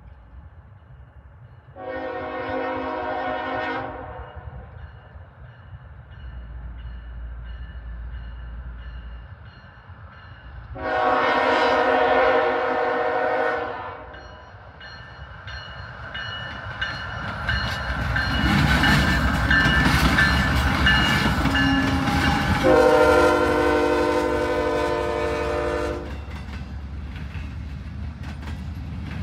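A diesel freight train approaches and passes, its locomotive horn sounding three blasts: a short one about two seconds in, and longer ones about eleven and twenty-three seconds in. The locomotives' rumble builds and peaks as they go by, followed by the steady run of the double-stack container cars.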